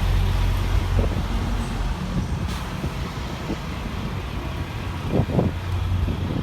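Diesel semi-truck engine running with a steady low hum that eases off about two seconds in. A brief sharp sound stands out a little after five seconds.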